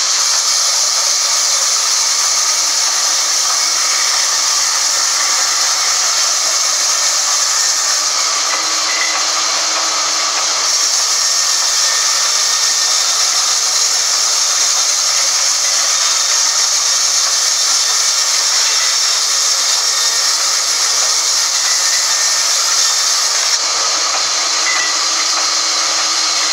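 Large sawmill band saw ripping lengthwise through a log, a loud, steady hiss of the blade cutting through the wood.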